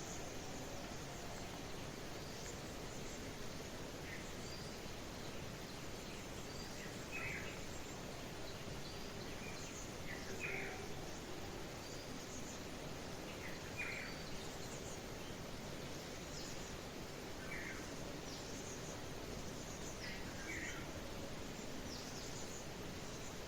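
Birds chirping in short, scattered calls every second or two over a steady, even background hiss.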